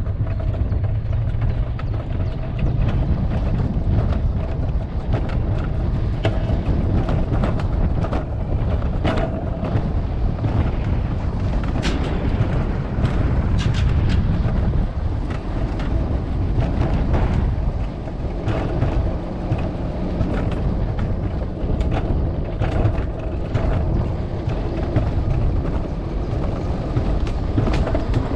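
Alpine coaster sled running along its metal track: a steady low rumble from the wheels, with irregular sharp clicks and rattles throughout.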